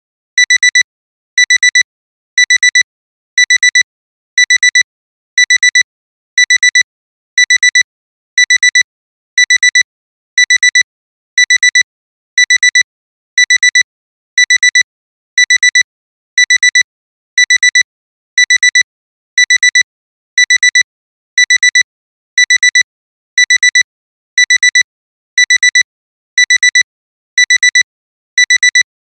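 Alarm clock alarm sounding, signalling that the timer has run out: high electronic beeps in quick pairs, beep-beep, repeating steadily about once a second.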